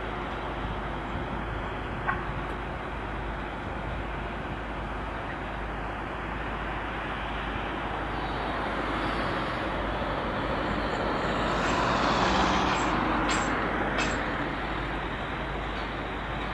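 Steady engine noise from heavy vehicles, swelling to its loudest about twelve seconds in, with a few sharp clicks, two of them close together near that peak.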